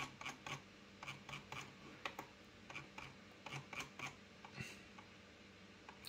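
Faint, irregular clicks from working a computer's mouse and keyboard, about two or three a second, thinning out about five seconds in.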